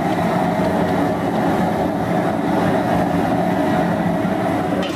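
Steady roar of an outdoor gas burner under a large crab-boil pot, with the seasoned water at a rolling boil.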